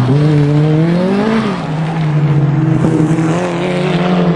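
Opel Kadett C rally car's engine running hard as the car pulls away. Its note climbs for about a second and a half, drops back, then holds fairly steady.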